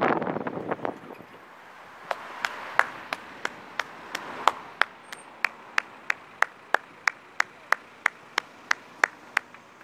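Noise of passing traffic dies away within the first second. Then a sharp, even ticking starts, about three ticks a second, and keeps a steady pace until near the end.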